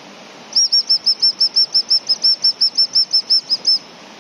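Acme 210 gundog whistle blown in a rapid, evenly spaced string of about twenty short high pips, about six a second, stopping near the end. This is the hunting whistle, the cue for the dog to get her nose down and search the area.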